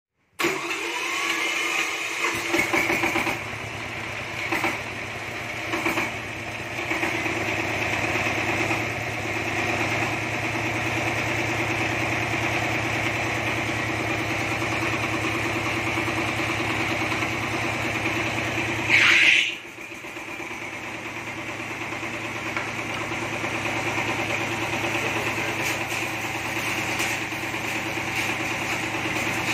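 Single-cylinder stationary diesel engine running steadily, driving a rice mill through long flat belts and pulleys, with the mill machinery whirring along with it. About two-thirds of the way through comes a brief loud hiss.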